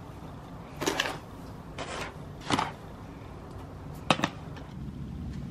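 Silica gel granules in a plastic tub being handled and sprinkled over a cactus bloom to dry it: a handful of short rustles and clicks about a second apart, the last a quick double click.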